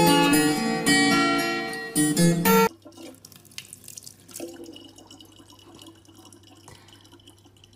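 Acoustic guitar music that stops abruptly about two and a half seconds in, followed by a faint, thin stream of tap water running into a plastic water bottle.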